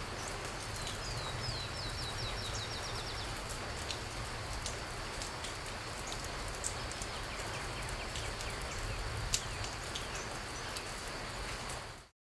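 Steady outdoor hiss with scattered light ticks, and a small bird singing a rapid trill of short repeated notes from about one to three seconds in.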